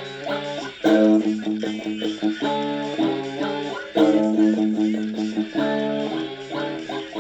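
Guitar music: chords and ringing notes played steadily with no singing.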